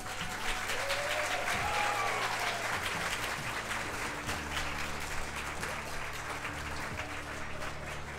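Audience clapping and applauding, with quiet music underneath; the applause slowly dies down.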